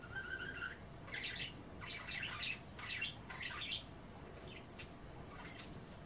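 Budgerigars chattering and chirping in short, quick bursts, busiest over the first four seconds and then thinning to a few faint chirps.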